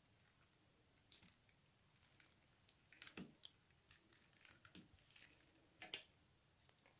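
Metallic slime being scraped and pressed with a spatula in a plastic bowl: faint, scattered sticky squishes and small clicks, loudest about six seconds in.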